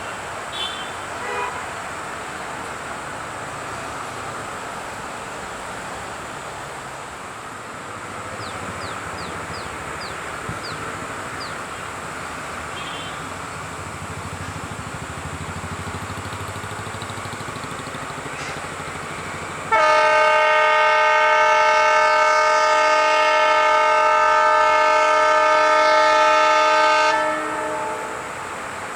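EMD diesel locomotive's horn sounding one long blast of about seven seconds, a chord of several steady tones, starting suddenly about twenty seconds in. Before the blast there is a steady rumbling background.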